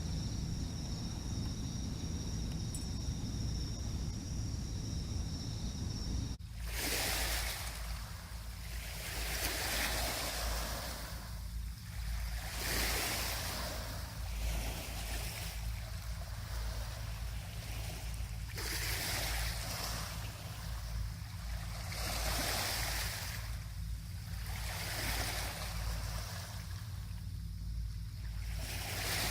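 Insects trilling steadily in two high tones over a low rumble; about six seconds in it cuts abruptly to small sea waves washing onto the beach, swelling and falling back every two to three seconds.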